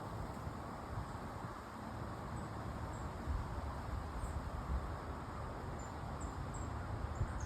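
Quiet outdoor background: a steady low rumble and hiss, with a few soft bumps and some short, faint, high chirps, mostly toward the end.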